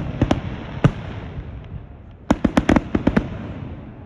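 Fireworks crackling: quick runs of sharp cracks, a few at the start, a single one just before the first second, and a rapid string of about eight a little past two seconds in, over a steady low rumble.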